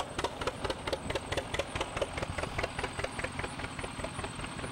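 Tractor engine running with an even, rapid popping exhaust, about five or six pops a second, over a low rumble. The pops fade near the end.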